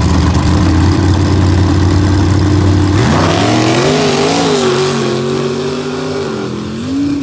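Two pickup trucks' engines held at steady high revs on the starting line of a dirt drag strip, then launching about three seconds in. The engine pitch climbs as they pull away, holds, and falls off near the end as they lift.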